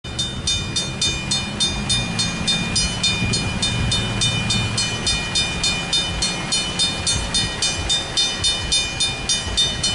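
Railroad crossing warning bell ringing rapidly, about three strikes a second, while the crossing gates lower: the crossing is activated, warning of an approaching train. The ringing stops just at the end, once the gates are down.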